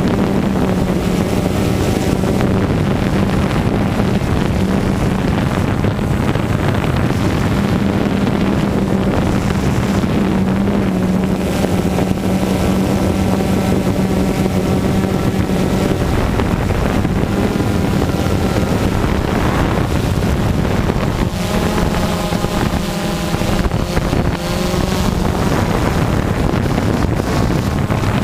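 Quadcopter drone's motors and propellers buzzing steadily at close range, with wind on the microphone. Now and then a fainter engine sound rises and falls beneath it, from dirt bikes revving on the track.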